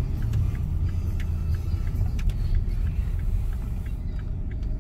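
Steady low rumble of a car driving on a wet road, heard from inside the cabin, with a light regular ticking about three times a second.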